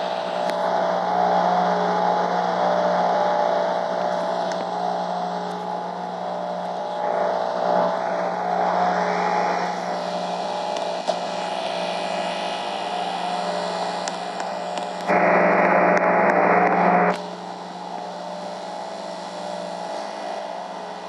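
Steady mechanical hum of an air conditioner with a city traffic wash over it, swelling and easing. A louder rush of noise lasts about two seconds near the end, then cuts off suddenly.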